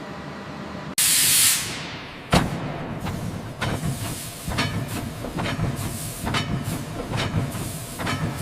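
A loud burst of hissing, like steam venting, about a second in, then a sharp bang followed by irregular metallic knocks and short hisses over a steady low mechanical hum.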